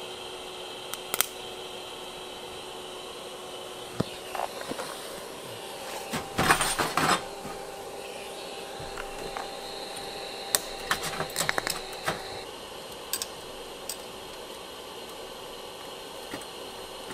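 Steady high whine and hum of a TIG welding setup running, with steel tubing pieces clinking and clattering on a metal bench at intervals, the loudest clatter about six seconds in and another run of clinks around eleven seconds in.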